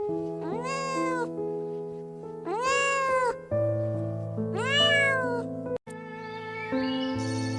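A cat meowing three times, each meow rising and then falling in pitch, over background music.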